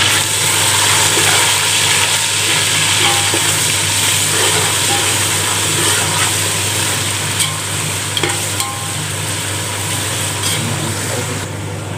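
Ginger-garlic paste frying with browned onions in hot oil in an aluminium pot: a steady sizzle while a steel slotted ladle stirs, with occasional clicks of the ladle against the pot.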